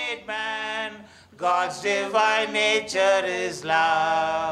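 A voice singing a slow devotional chant unaccompanied, holding long notes, with a short pause about a second in.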